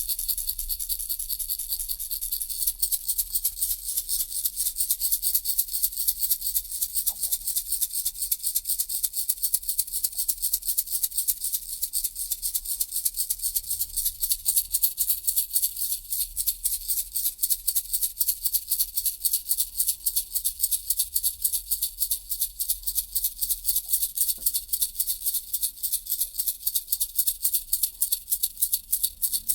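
Baby rattle shaken steadily in an even rhythm, its beads giving a bright, hissing rattle several times a second.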